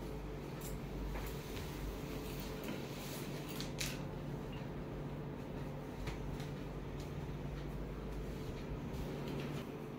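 Comb strokes through long hair: faint, scattered scratching and brushing ticks, one a little louder about four seconds in, over a steady low hum.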